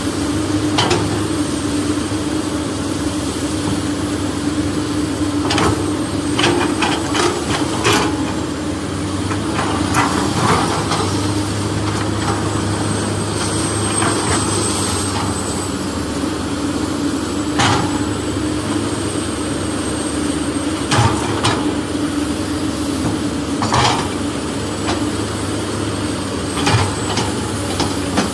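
Toy excavator's plastic bucket scraping and scooping soil, with clicks and knocks every few seconds as it hits plastic and clods drop. A steady low mechanical hum runs underneath.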